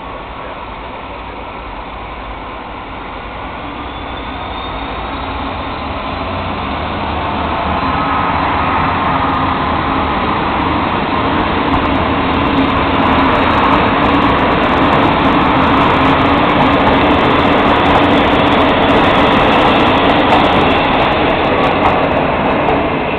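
Diesel multiple unit pulling out of the station and accelerating past: its engine running and wheels rolling on the rails grow louder as the cars go by close, with scattered clicks and knocks from the wheels, then fade a little as it draws away near the end.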